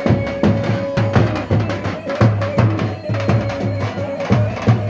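Davul, the large double-headed bass drum, beaten in a driving halay dance rhythm, with a melody instrument holding long notes over it.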